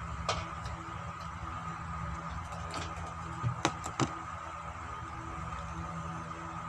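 A few sharp clicks and crinkles of a paper food wrapper being handled and opened, the loudest a few seconds in, over a steady background hum.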